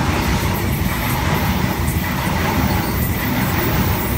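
An 8-car H-set 'Oscar' electric multiple unit passing close by without stopping: a loud, steady rumble of steel wheels on rails as the cars go past.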